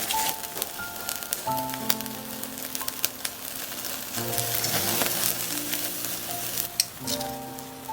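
Food sizzling over charcoal on a shichirin grill, with sharp crackling pops throughout, under background music of held notes.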